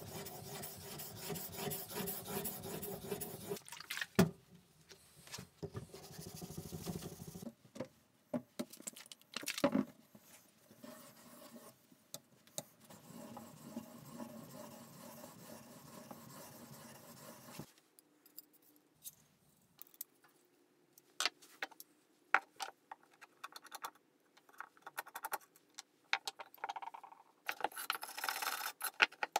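Steel plane iron from a vintage Anchor hand plane being rubbed back and forth on a sharpening stone: a steady scraping, broken by a few sharp knocks. About halfway through the scraping stops, and scattered metal clicks and knocks follow as the plane body and its parts are handled on a wooden workbench.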